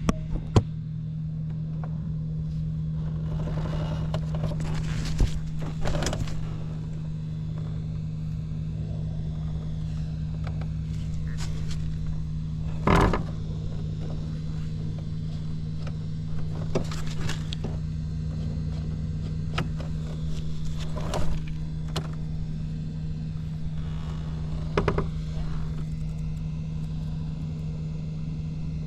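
Suzuki Hi 50cc two-stroke scooter engine with an expansion-chamber exhaust idling steadily, with a few short sharp sounds over the idle, the loudest about halfway through. It runs evenly with no odd noises.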